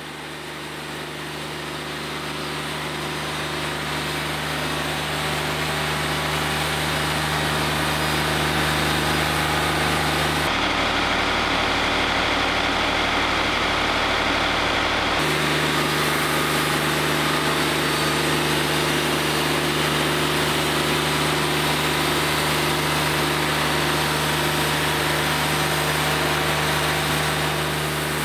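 Diesel engine of a Wood-Mizer LT40 hydraulic band sawmill running steadily, growing louder over the first several seconds. About ten seconds in, the steady hum gives way abruptly to a duller, rougher rumble for about five seconds, then comes back.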